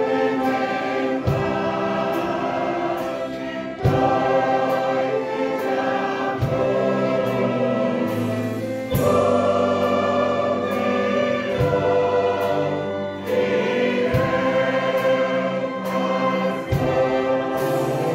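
Orchestra of strings and brass playing a hymn, with a choir of voices singing along; a low accent marks each new chord about every two and a half seconds.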